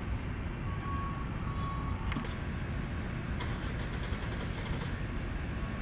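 Steady low rumble of harbour background noise, even in level, with two faint clicks about two and three and a half seconds in.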